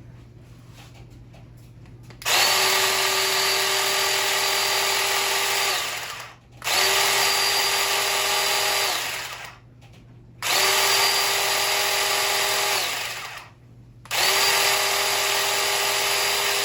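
Ryobi 18-volt cordless 10-inch mini chainsaw's electric motor running the chain with no load, in four bursts of about three seconds each, each one winding down with a falling whine as the trigger is released.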